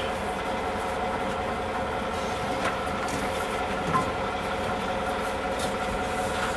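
Combine harvester running steadily, a constant mechanical drone with several fixed tones, and a few faint clicks, one about four seconds in.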